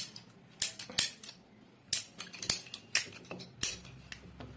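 Scissor-type PPR pipe cutter clicking as its handle is worked, the blade cutting through a plastic PPR pipe: about eight sharp clicks at irregular intervals.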